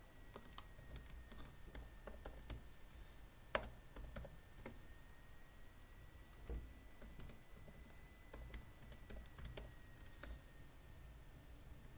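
Computer keyboard being typed on: faint, irregular key clicks with short pauses and one sharper click about three and a half seconds in. A faint steady high-pitched whine runs underneath.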